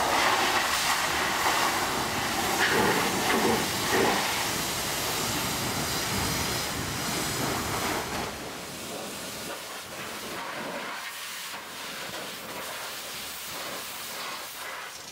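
High-pressure water jet spraying onto a truck's engine bay, a loud steady hiss with spatter. About eight seconds in it drops to a softer hiss of water.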